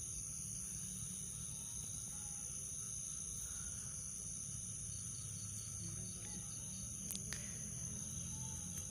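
Night insects, crickets, trilling steadily in two high unbroken tones, over a low rumble of wind on the microphone; two short clicks about seven seconds in.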